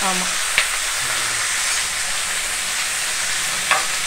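Raw chicken pieces sizzling steadily in hot oil in a nonstick frying pan as they are stirred with a metal spoon, which clinks against the pan twice, about half a second in and near the end.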